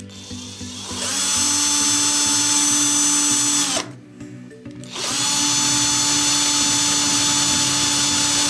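Electric drill running in two bursts of about three seconds, each spinning up with a rising whine, then holding steady and cutting off, as the bit bores through the plastic end of a syringe barrel.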